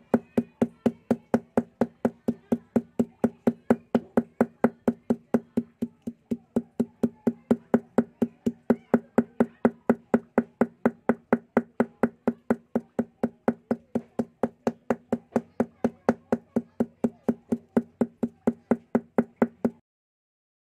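Claw hammer beating the paint-stiffened bristles of an old paintbrush against a stone slab to break up the dried paint. The blows come steadily at about four a second, each with a low ring, and stop suddenly near the end.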